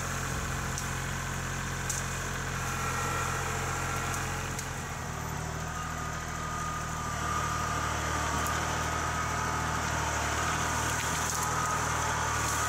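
Kubota compact tractor's diesel engine running steadily as the tractor works its loader through brush, its note shifting slightly about five seconds in.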